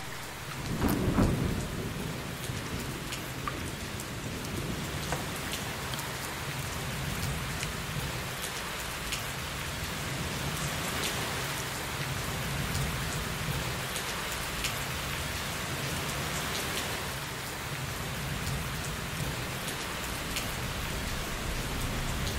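Steady rush and splash of water as white button mushrooms are washed by hand in a glass bowl of water, with small clicks of mushrooms knocking against the glass and a low bump about a second in.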